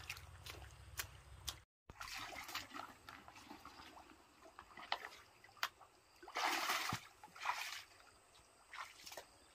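Shallow muddy water splashing and sloshing as a person wades and dips a plastic bucket, with scattered sharp clicks and squelches. The loudest splash comes about six and a half seconds in.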